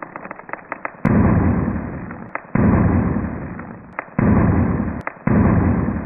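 Plastic air-cushion packaging crinkling as it is squeezed, then four explosion sound effects in a row: each is a sudden boom that fades over about a second.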